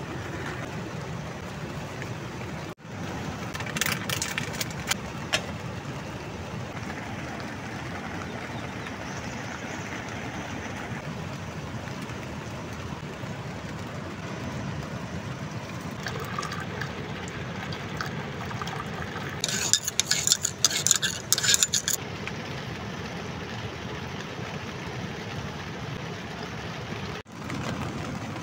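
Steady rushing of a fast river. Short bursts of clinking and rattling from metal cookware come about four seconds in and again around twenty seconds in.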